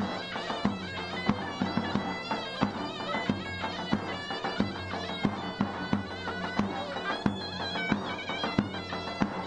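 Loud folk dance music: a reedy wind instrument plays a wavering melody over a steady low drone, while a drum beats a steady rhythm with a strong stroke about every two-thirds of a second and lighter strokes between.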